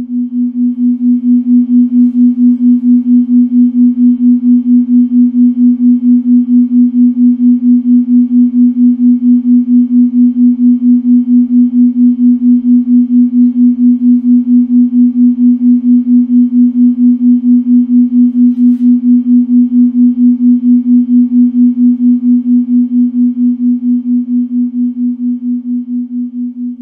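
A steady, pure low-to-mid tone that pulses evenly in loudness several times a second, fading in at the start and out near the end: a sound-therapy tone.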